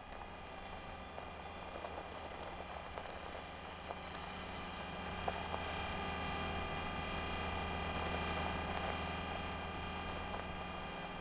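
Steady mechanical hum of the animated Curiosity rover's motors, a low drone with several held tones over it, with a faint click about five seconds in.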